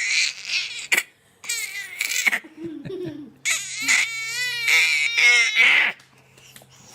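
A baby crying in several high-pitched, wavering bursts, the longest a drawn-out wail in the second half that breaks off about a second before the end.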